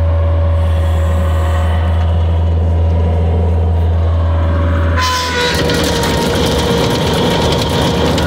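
Bobcat T250 compact track loader running with its engine humming steadily. About five seconds in, the sound changes to a louder, rougher rush with a thin steady whine on top as the machine is driven on its tracks: the whine this loader makes when tracking, alongside weak power on one drive side.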